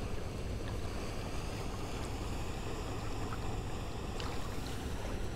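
Steady rush of river water and wind on the microphone, with a few faint ticks.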